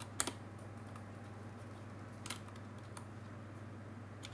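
A few separate computer keyboard keystrokes, spaced out, over a steady low hum.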